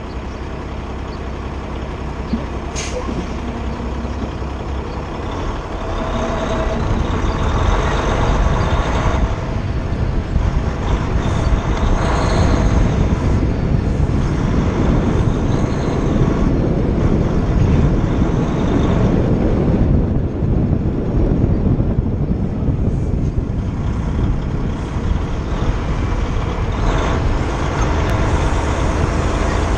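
Semi-truck's diesel engine running as the tractor-trailer maneuvers slowly in reverse, its low rumble growing louder after a few seconds. There is a short air-brake hiss about three seconds in.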